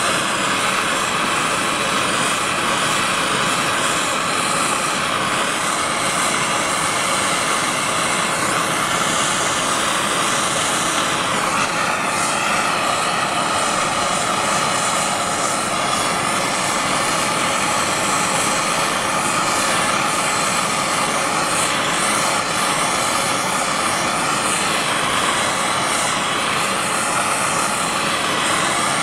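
Hand-held propane torch burning with a steady, even hiss. Its flame is heating a metal part to expand its bore for a shrink fit.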